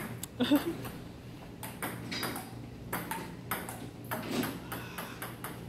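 Table tennis rally: a celluloid-type ping-pong ball clicking back and forth off rubber-faced paddles and the table top, a steady run of sharp clicks, often in quick pairs of paddle strike and table bounce.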